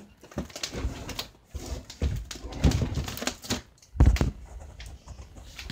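Irregular thumps, scuffles and clicks of a German Shepherd's paws and claws on a wooden floor as it moves about, the loudest thump about four seconds in.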